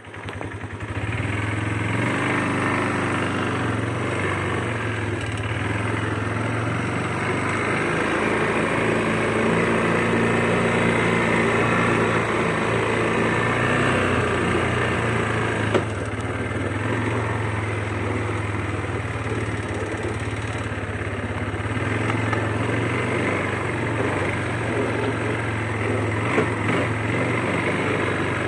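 Quad bike (ATV) engine running steadily while riding along, with two brief knocks about halfway through and near the end.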